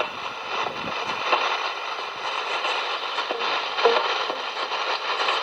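Shortwave radio static: a steady hiss with crackle and fading on a distant broadcast signal, the programme audio only faintly underneath.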